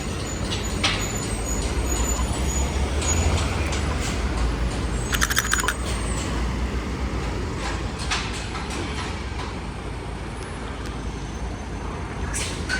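Road traffic, with a heavy vehicle's engine rumbling low and steady, and a short burst of rapid rattling clicks about five seconds in.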